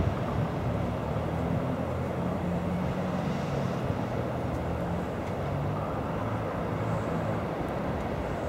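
Custom van's engine running steadily as it drives slowly past, a low even engine note with road traffic noise.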